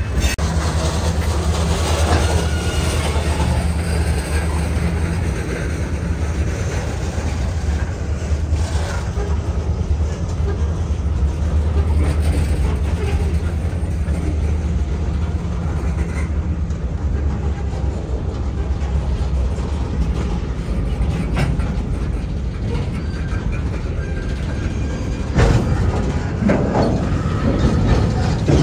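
Freight cars rolling slowly past at close range: a steady low rumble of wheels on rail, with scattered clicks and clanks and a louder, rougher stretch near the end.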